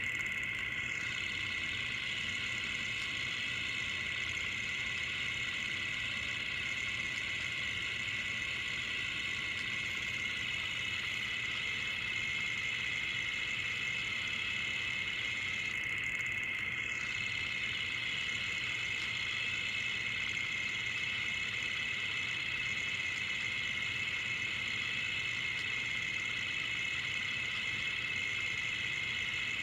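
Film projector running: a steady mechanical whirr and clatter with no change in pace or level.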